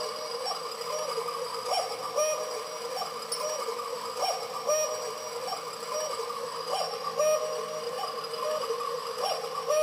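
A battery-powered cuckoo clock ticking under a short tune that repeats about once a second over a steady hum.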